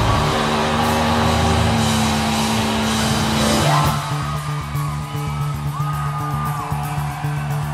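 Live rock band playing loud held chords, which drop away about three and a half seconds in to a quieter passage with a steady rhythm.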